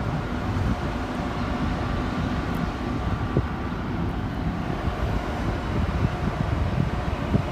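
Doha Metro train rumbling steadily, with faint steady whine tones above the low rumble.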